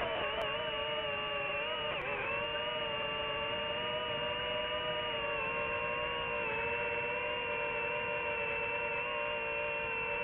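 Brushless motors of an FPV racing quadcopter whining steadily in flight, several close tones moving together. The pitch dips briefly about two seconds in and again past six seconds as the throttle changes.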